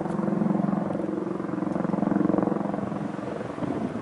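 Military jet flying overhead: a steady low engine drone that swells twice, then fades near the end.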